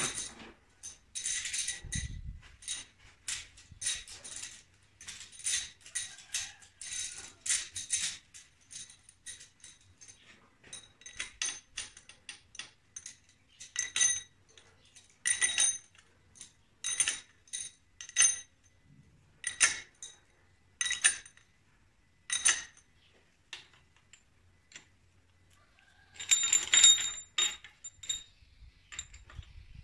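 Steel valvetrain parts of a Mitsubishi 4D33 diesel cylinder head, its pushrods and rocker-arm shaft, clinking and tapping against each other as they are handled and fitted. The clinks come about once a second, each with a short metallic ring, and bunch into a louder flurry near the end as the rocker shaft assembly is lifted into place.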